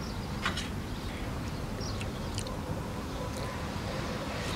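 A person eating Khmer rice noodles with fresh greens: scattered wet chewing and slurping mouth sounds, over a steady low rumble of wind on the microphone.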